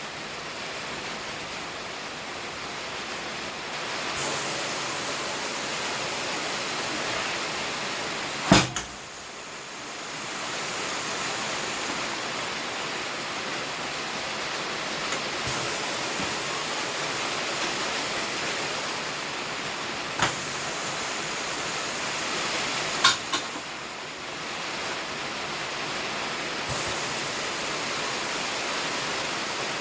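Pneumatic tire changer at work taking a tire off: a steady hiss of compressed air that rises and falls in level, with a few sharp clacks, two of them close together near the middle.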